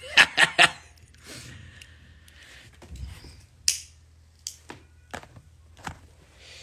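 Sharp clicks: three loud ones in quick succession just after the start, then a few scattered single clicks.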